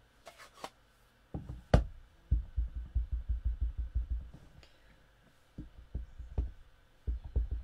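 A clear stamp on an acrylic block being inked: quick runs of soft, low thumps as it is dabbed against an ink pad, about five a second, in three bursts. A single sharp click comes just before the first burst and is the loudest sound.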